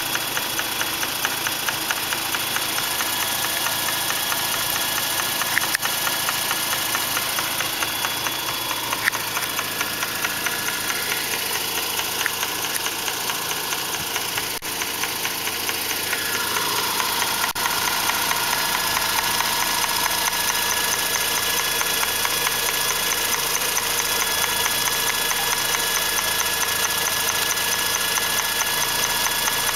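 2004 Mazda RX-8's twin-rotor Renesis rotary engine running steadily with a fast, even ticking noise from the intake area, caused by worn secondary shutter valves (SSV) that needed rebuilding. From about halfway it runs a little louder with a new steady tone.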